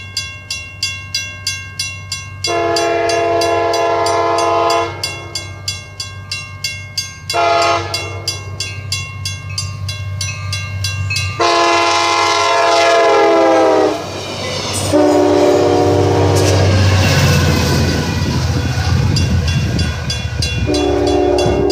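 Railroad crossing bell ringing rapidly while a Trinity Railway Express commuter train approaches, sounding its multi-tone horn in several long blasts. The horn drops in pitch as the train reaches the crossing, then the train rumbles past with further lower-pitched horn blasts.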